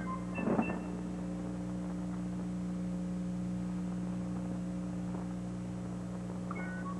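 Steady electrical hum made of a few low, unchanging tones. Guitar notes die away about a second in, and a few plucked notes return near the end.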